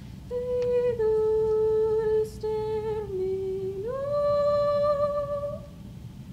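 A voice humming a slow melody of about five long held notes with short slides between them. The last note is the highest and longest, and the humming stops near the end.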